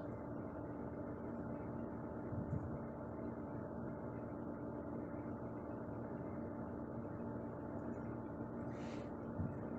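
Steady low background hum with a faint hiss, the room tone of the recording, with a short soft hiss about nine seconds in.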